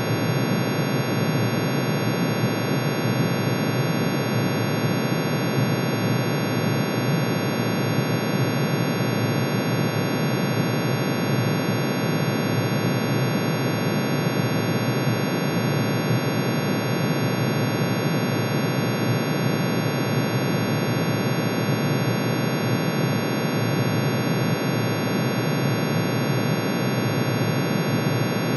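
Synthesized tone made from the atomic emission spectrum of iron: many sine waves, one for each spectral line, summed and pitch-shifted into hearing range. It is a steady, unchanging chord of many high tones over a dense rough drone in the low range.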